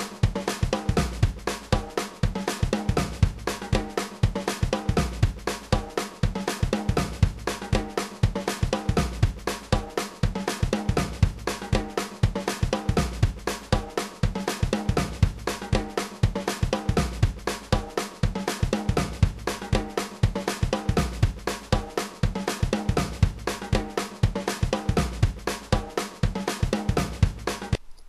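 Background music with a steady drum beat, which cuts off abruptly near the end.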